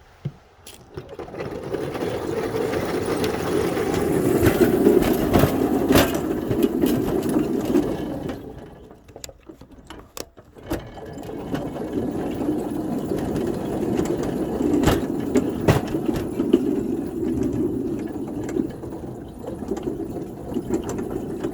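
Small ride-on railroad locomotive's engine running as it moves along the track. It drops away for a couple of seconds about halfway through, then picks up again, with a few sharp clicks along the way.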